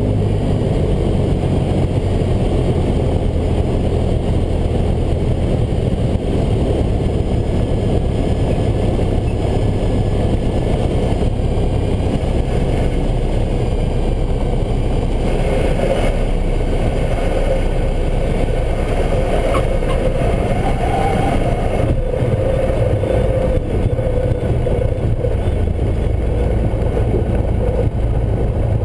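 Cessna 172's piston engine and propeller running at low landing power under heavy wind rush, carrying on steadily as the plane comes in over the trees, touches down and rolls out along the runway.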